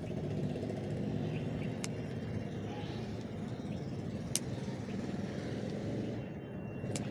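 Pruning scissors snipping jade plant branches: three sharp, short clicks, the loudest about midway, over a steady low rumble.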